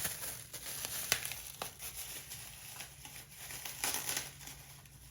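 Packaging wrapping being crumpled and handled, an irregular crinkling rustle with a few sharp clicks and a louder rustle near the end.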